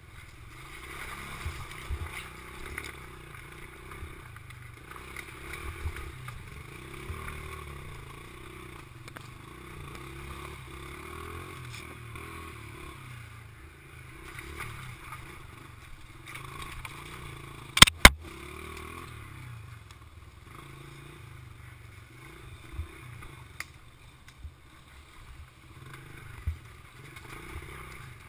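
Mini bike engine running as it is ridden over a rocky dirt trail, its pitch rising and falling with the throttle, with bumps and clatter from the rough ground. Two sharp knocks come close together about two-thirds of the way through.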